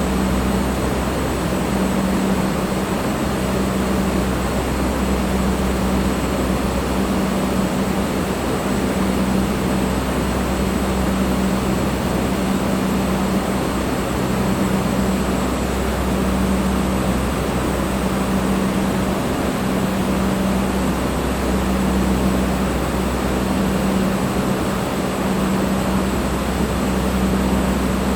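Electric fan running steadily: an even rushing noise over a low motor hum, with a hum tone that swells and fades in a slow, regular beat.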